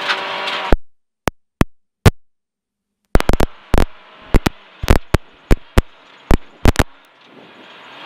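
Engine and road noise inside a Ford Fiesta R1 rally car at speed. The sound cuts abruptly to dead silence just under a second in, broken by a few isolated sharp clicks, then returns about three seconds in, peppered with loud sharp clicks.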